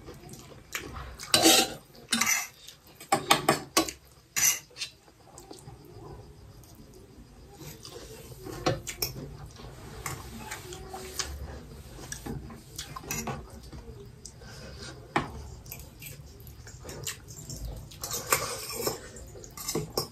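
Metal spoons and forks clinking and scraping against steel plates while eating, in irregular bursts, busiest in the first few seconds and again near the end.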